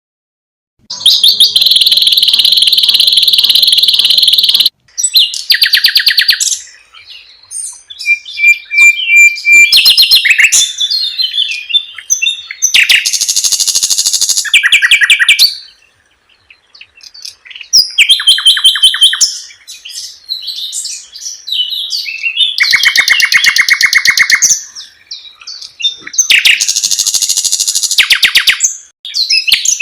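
Recorded songbird song: loud, fast trills of rapidly repeated high notes, delivered in separate bursts of one to four seconds with short pauses between them. This is the kind of rapid-fire 'tembakan' song used as fill material for training cage songbirds.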